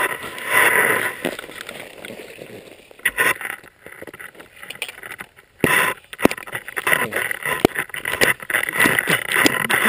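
Trekking pole tip knocking and scraping against the frozen cap of a plastic water bottle in the snow: irregular sharp knocks with scuffing in between, busier in the second half.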